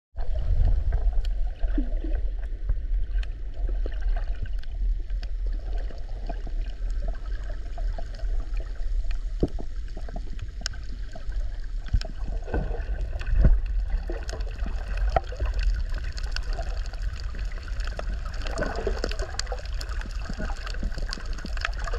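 Underwater sound picked up by a camera held below the surface while snorkelling over a coral reef: a steady, muffled low rumble of moving water, with scattered sharp clicks throughout.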